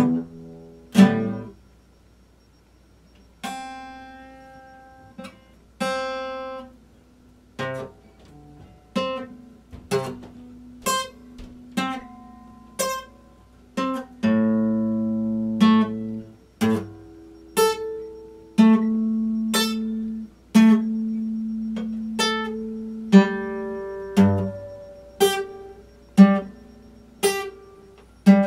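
Epiphone acoustic guitar played slowly: single plucked notes and chords about once a second, each left to ring and fade. There is a pause of about two seconds after the first two chords, and a few notes are held longer.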